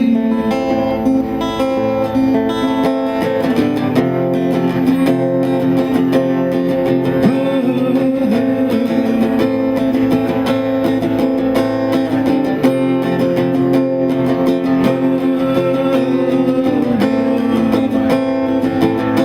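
Acoustic guitar strummed in a steady accompaniment, with a long held melody line sounding over the chords.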